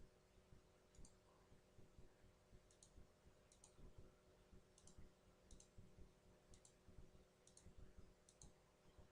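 Faint computer mouse clicks: about eight quick double ticks at uneven intervals over a low steady hum.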